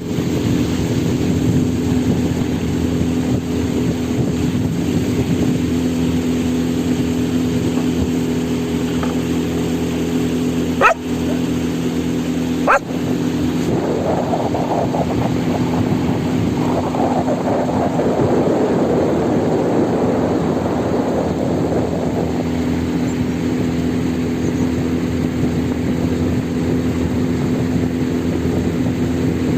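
A motor running at a steady pitch, with two sharp clicks partway through.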